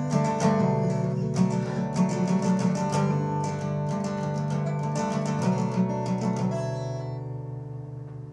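Acoustic guitar played with quick rhythmic strokes; from about six and a half seconds in, a last chord is left to ring and slowly die away, ending the song.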